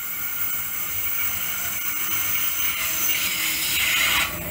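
Electric suburban train approaching and running into the station platform, its running noise growing steadily louder, with a hissing rush that builds about three seconds in and stops suddenly near the end.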